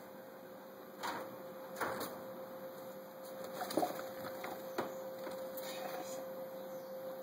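Baby squirrels' claws scratching and clicking on wire cage mesh: a few short scrapes and taps, the loudest nearly four seconds in, over a steady hum.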